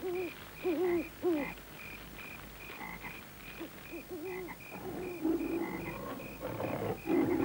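Cartoon night-jungle sound effects: hooting bird calls that waver up and down, loudest in the first second and a half, over a steady run of short, high, evenly spaced chirps at a little over two a second.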